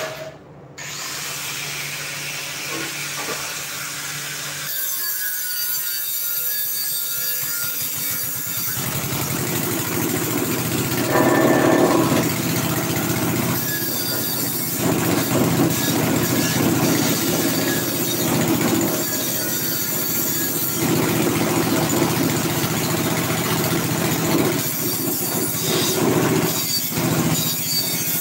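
Electric arc welding: a steady crackling sizzle that drops away briefly a few times between runs, over a low steady hum.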